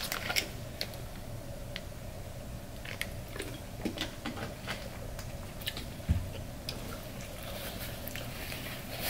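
Close-miked chewing of crunchy fried chicken wing skin: scattered crisp crunches and mouth clicks over a steady low hum.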